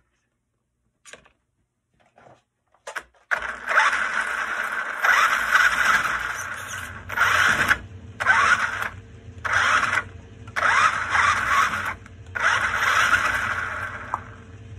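Traxxas Stampede 4x4 VXL's brushless motor and drivetrain spinning the wheels in the air under throttle: a few faint clicks, then about three seconds in a long run followed by five shorter bursts of about a second each. Each burst runs evenly, without the jerking stutter of motor cogging, now that the motor's power connector has been resoldered.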